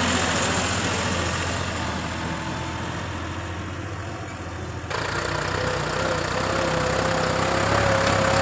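Farm tractor engine running under load as it pulls a heavily loaded trolley away, fading. About five seconds in, the sound changes abruptly to a second tractor hauling a loaded trolley up a dirt slope, its engine growing louder with a steady high whine.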